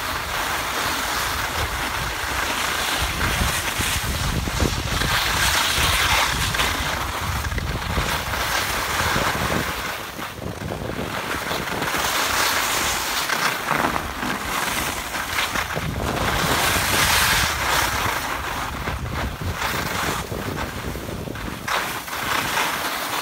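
Wind buffeting the microphone while skiing downhill, with the hiss and scrape of skis sliding over groomed, packed snow; a steady rush that swells and dips.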